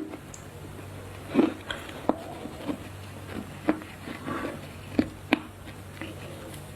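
Close-miked chewing of a crunchy stuffed chocolate chunk: irregular crunches and mouth clicks a second or so apart over a low steady hum.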